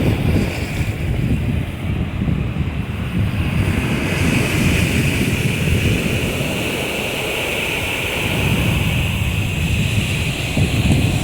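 Black Sea surf washing onto the beach, a steady hiss that swells about four seconds in, with wind buffeting the microphone in low rumbles.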